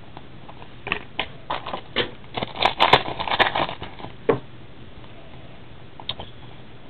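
Trading cards and their packaging being handled: a run of crinkles, rustles and clicks, densest about two to four seconds in.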